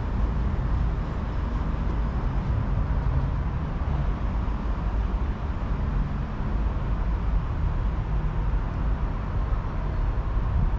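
Steady background noise: a low rumble with an even haze above it and no distinct events.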